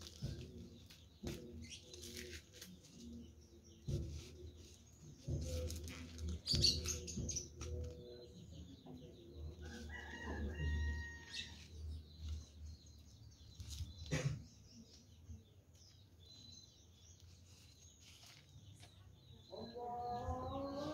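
Tissue paper wrapping crinkling and rustling in scattered bursts as it is pulled away from a potted plant. A bird calls in the background about ten seconds in.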